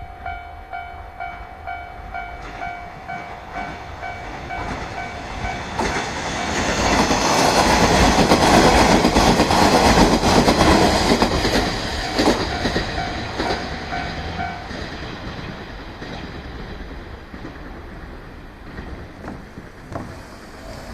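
A level-crossing warning bell rings about twice a second while a three-car JR Shikoku 1200-series diesel railcar passes over the crossing at speed. The train's engines and wheels swell to a peak midway, with rail-joint clacks, then fade. The bell stops about two-thirds of the way in.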